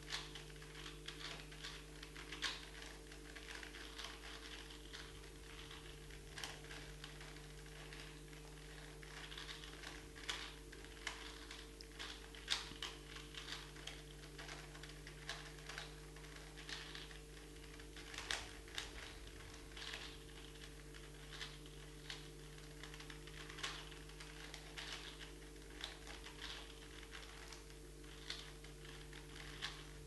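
4x4x4 Rubik's cube being scrambled by hand: its plastic layers are turned over and over, giving faint, irregular clicks and clacks several times a second, over a steady low hum.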